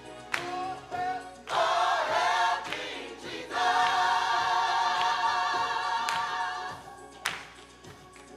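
Gospel choir singing: a loud sung phrase, then a long held chord with vibrato from about three and a half seconds in, fading near the end.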